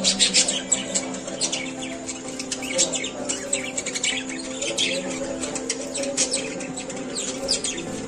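Budgerigars warbling and chirping in a rapid, continuous chatter of short, quick notes.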